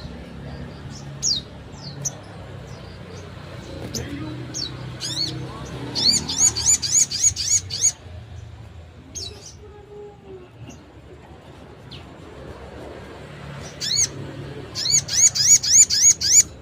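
Little spiderhunter (sogok ontong) calling: scattered sharp single chips, and twice a fast run of high repeated notes, about six a second for two seconds or more.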